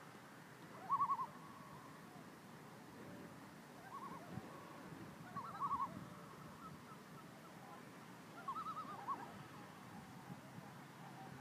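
A bird's short, quavering calls, repeated every few seconds over faint background noise.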